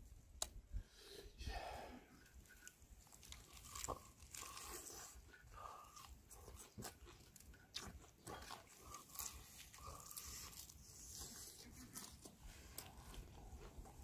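Faint crunching and chewing of old-style Korean whole fried chicken as it is torn and bitten, with scattered short clicks.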